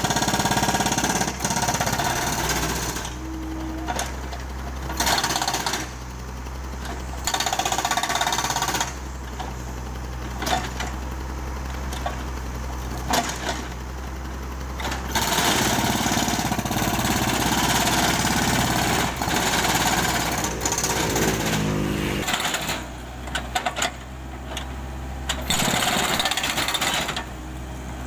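Hydraulic breaker on a Komatsu PC78US excavator hammering and breaking up concrete in bursts of one to several seconds with short pauses. The longest run comes about midway. The excavator's diesel engine runs steadily underneath.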